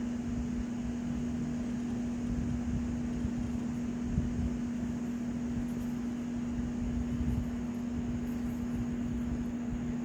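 Steady background machine hum: one constant tone over a low rumble and faint hiss, unchanging throughout.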